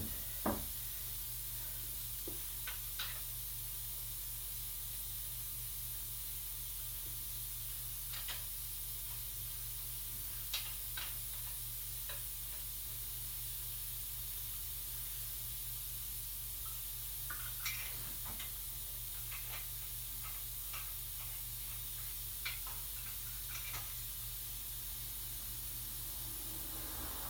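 Steady low hum and hiss, with a dozen or so faint, short clicks and taps scattered through it.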